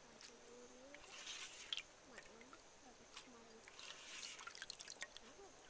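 A hand swishing and rubbing soaked grains in water in an aluminium bowl: faint splashing and squelching in two short bouts, about a second in and again about four seconds in.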